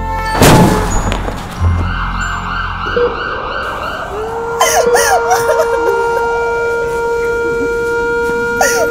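Film sound effects: a loud sudden hit about half a second in, then a wavering siren wail, then a long steady tone that holds to the end. From about four and a half seconds, a woman is crying and wailing over the tone.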